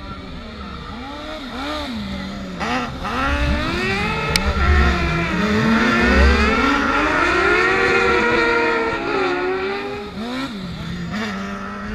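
Racing buggy engines revving hard through a corner, the pitch repeatedly rising and dropping as the cars brake, slide and accelerate away, with more than one engine heard at once. Loudest about six seconds in, as a car passes close by.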